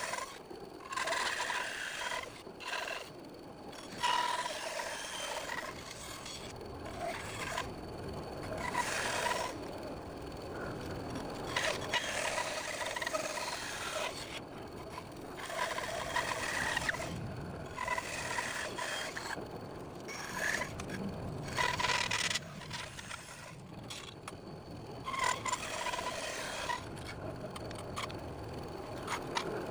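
A saw cutting through wood in stop-start spells of a few seconds each, with short pauses between, as a tricky pattern is worked out.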